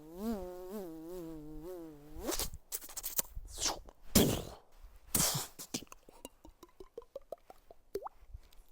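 Beatbox mouth sound effects: a wavering, buzzing hum like an insect for about two seconds, then clicks and hisses, and near the end a run of quick mouth pops rising in pitch.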